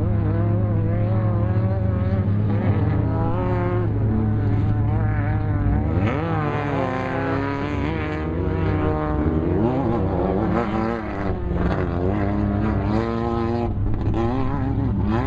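Off-road race vehicles' engines revving and passing, their pitch rising and falling, over a steady low engine drone that eases off about six seconds in.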